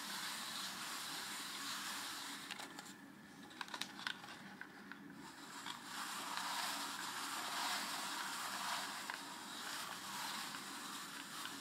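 Hand-cranked paper wave automaton turning: its stacked paper slats slide and rub on the cam shaft, making a soft, fluctuating scraping rustle. About three to four seconds in the rustle dips, and a few light clicks come through.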